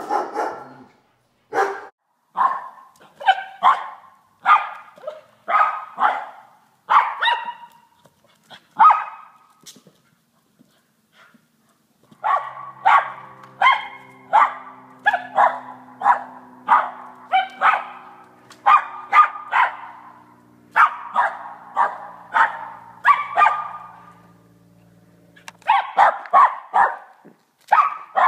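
Small dog barking excitedly at a balloon in play, in short sharp barks about one or two a second, with a pause of a few seconds about a third of the way through.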